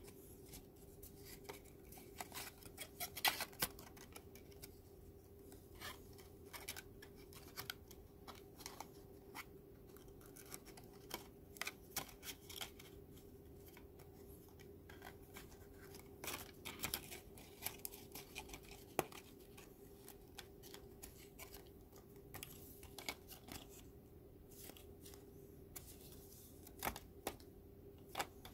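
Stiff Kent paper being handled and its tabs pushed into slots: irregular crisp crackles, rustles and clicks of thin card bending and sliding, some louder snaps around three seconds in and again near the end.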